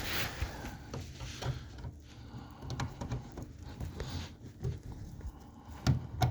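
Scattered light knocks, clicks and rustles of someone handling things while getting a plug to the wall outlet, with a louder knock near the end.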